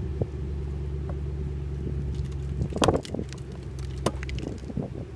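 A few sharp metallic clicks and scrapes as a hive tool prises a staple out of the wooden lid of a bee package, the loudest just before three seconds in, over a steady low hum.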